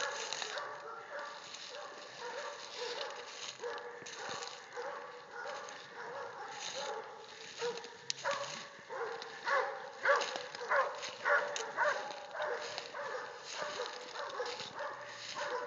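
Cur hog dogs barking over and over in a steady string of barks, louder and faster for a few seconds about halfway through: dogs baying a hog.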